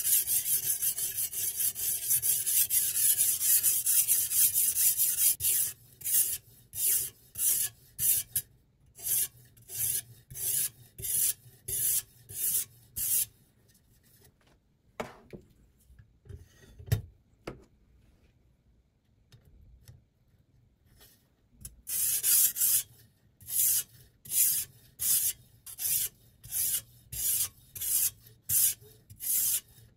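Sharpening stone on the guide rod of a Sytools Beast knife sharpening system, scraping along the edge of a clamped chef's knife. The first few seconds are fast, continuous strokes; these then slow to separate strokes about two a second. About halfway through there is a pause with a couple of knocks while the clamped blade is turned over, and then the strokes resume.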